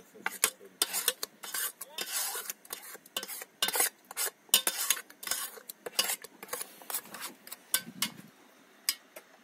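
A metal spoon or utensil stirring and scraping against cookware, with quick irregular clinks and scrapes that stop about a second before the end.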